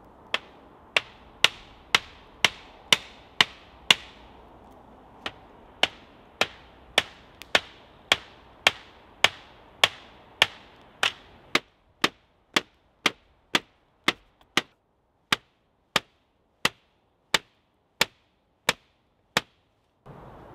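Sharp knocks on a woven hazel wattle wall as it is worked, about two a second. There is a short pause about four seconds in, and the knocks slow a little near the end.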